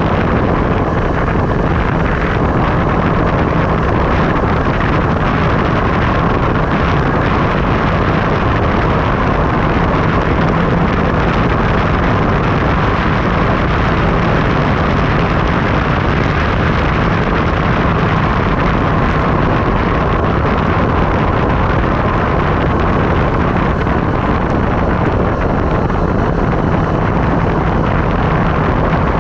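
Steady, loud wind rush and buffeting on an action camera's microphone during a fast downhill ride, with a constant hum under it.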